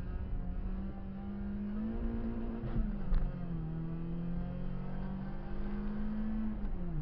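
Renault Clio 16V's 1.8-litre sixteen-valve four-cylinder under hard acceleration, heard from inside the cabin. The revs climb, drop at a gear change about three seconds in, climb again, and drop at another shift near the end.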